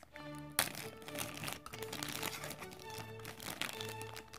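Background music with sustained notes over a bass line, starting just after the beginning, with a clear plastic bag crinkling as it is handled; a sharp crackle about half a second in.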